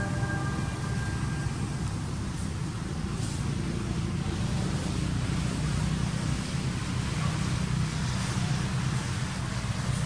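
Steady low outdoor rumble with a faint hiss above it, unbroken throughout.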